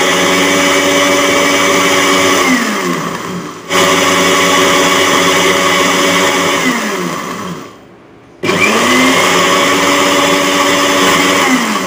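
Electro blender motor running in three short bursts: each run is a steady whine that drops in pitch as the motor is switched off and coasts down, with restarts about 4 and 8½ seconds in. The jar holds chilled milk and mustard oil being blended into a thick sauce.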